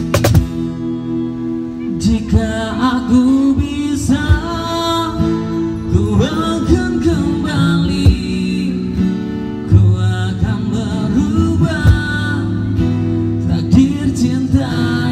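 Live acoustic pop song: a singer's voice through a microphone over strummed acoustic guitar.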